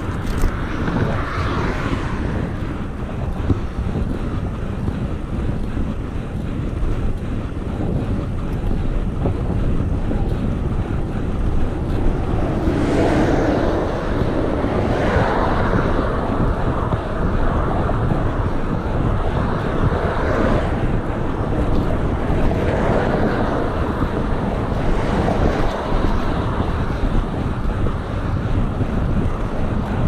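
Wind buffeting the microphone of a cyclist riding at road speed: a steady low rumble. From about halfway through, louder rushes swell and fade every few seconds.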